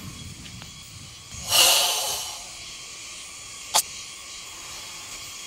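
Forceful hissing exhalation of Sanchin kata breathing in Goju-ryu karate: a loud burst about a second and a half in that tails off within a second. About two seconds later comes a single sharp smack, a hand striking the bare body.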